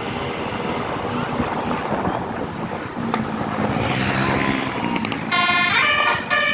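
Vehicle engine and road noise, then about five seconds in a bus's telolet horn starts playing, a loud multi-note melody of stepped tones in the flute-like 'basuri' style.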